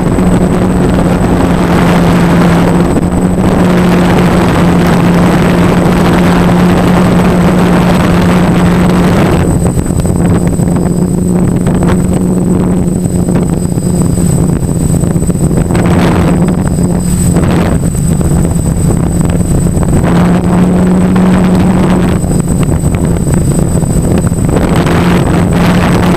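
DJI F550 hexacopter's brushless motors and propellers humming steadily in flight, loud and close from a camera mounted on the frame. The hum rises a little in pitch about twenty seconds in. Gusts of wind noise hit the microphone now and then.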